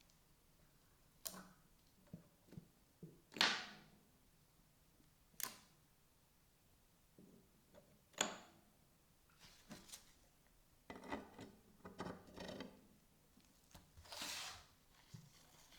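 Workshop handling sounds: scattered clicks, taps and short scrapes of tools and parts being picked up and set down on a bench, the loudest a quick scrape about three and a half seconds in, with a run of rapid clicks later on.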